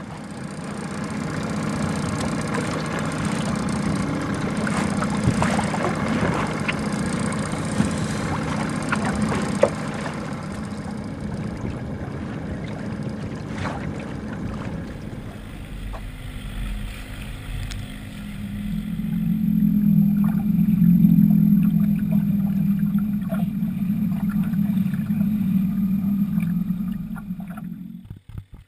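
Wind and water sound on a small open boat, with scattered knocks from gear being handled. About halfway through, a boat motor starts running with a steady low hum that grows louder for a few seconds, then holds.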